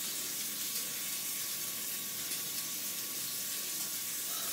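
Bacon frying in a pan: a steady sizzling hiss, with a faint steady high tone beneath it.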